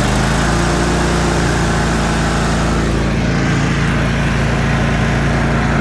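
The 25-horsepower Kohler engine of a Troy-Bilt Mustang zero-turn mower being throttled up from idle. Its pitch rises in the first half-second, then it runs steadily at the higher speed.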